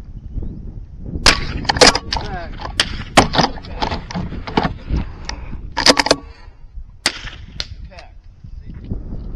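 A string of sharp .22 rifle shots at irregular intervals, some coming close together.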